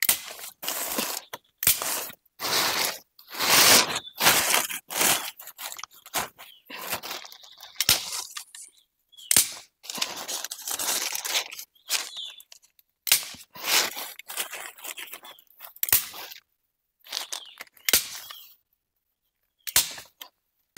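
Plastic tarpaulin sheeting being pulled and worked into place by hand: irregular bursts of crinkling and rustling, some sharp and some drawn out, with a few short pauses.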